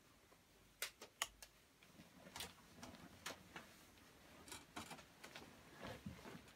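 Near silence in a small room, broken by scattered sharp clicks and soft rustling as a person moves about and climbs into bed, the bedding rustling under her.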